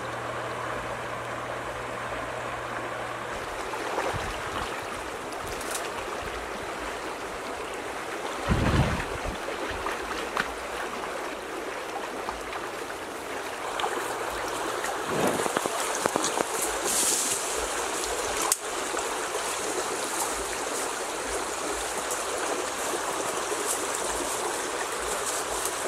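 Stream water running steadily, with a few dull thumps along the way. A high, thin hiss joins about halfway through.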